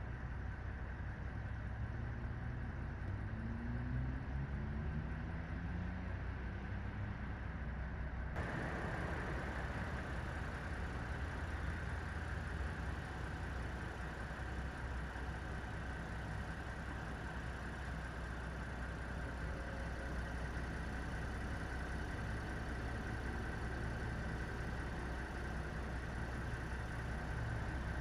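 Steady low hum of idling vehicle engines outdoors. A few seconds in, one engine's pitch rises as it accelerates, and about eight seconds in the sound changes abruptly.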